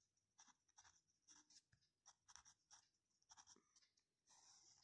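Pen writing block capital letters on paper on a clipboard: a quick series of faint, short scratches, one for each stroke, with a longer scrape near the end.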